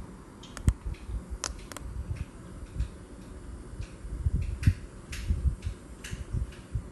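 Scattered small clicks and low knocks as fingers press and hold two buttons together on a handheld four-button gate remote, with handling noise.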